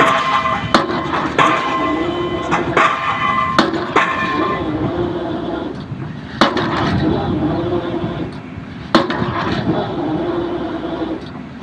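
Excavator drop hammer striking a pile: a run of heavy blows at uneven intervals, the first few ringing metallically, over the steady drone of the excavator's diesel engine.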